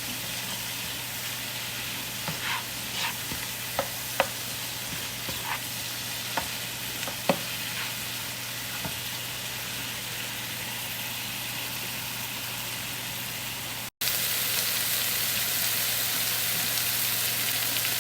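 Pork and cabbage sizzling in a hot pan while being stir-fried, with sharp clicks of the utensil against the pan in the first half. The sizzle drops out for an instant about fourteen seconds in and comes back louder.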